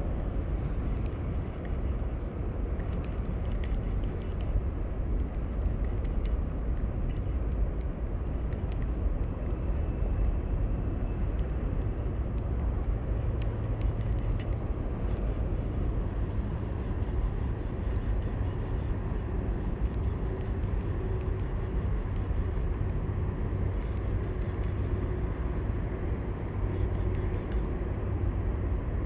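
Wind buffeting the microphone: a steady low rumble that does not let up, with faint scattered high ticks over it.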